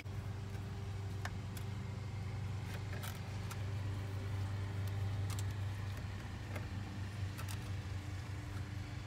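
A steady low hum, with faint scattered clicks and taps of a screwdriver and fingers working a plastic sensor connector loose in an engine bay.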